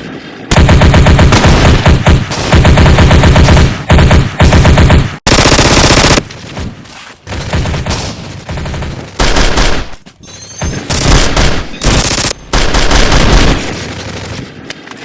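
Gunfire sound effects, rapid automatic fire in long bursts, loudest over the first five seconds, then shorter bursts separated by brief gaps.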